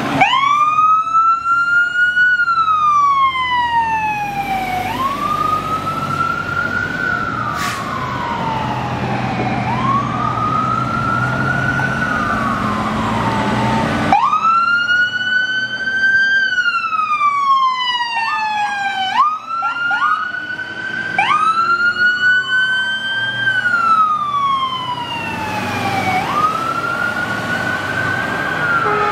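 Fire apparatus sirens wailing, each cycle winding up quickly and falling away slowly, repeating every four to five seconds, over the low rumble of the fire trucks' engines. About two-thirds of the way in, a few quick short siren sweeps cut in.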